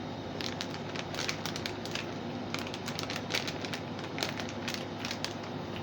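Plastic snack wrapper crinkling as it is handled: an irregular run of sharp crackles.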